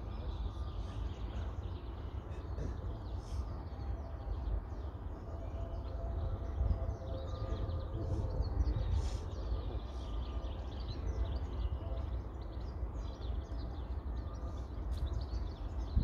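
Wind rumbling on the microphone, with birds chirping and twittering throughout.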